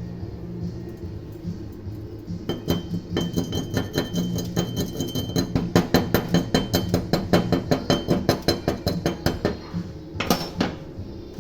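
Rapid metallic tapping, metal struck on metal several times a second for about seven seconds, then one louder knock near the end, over background music.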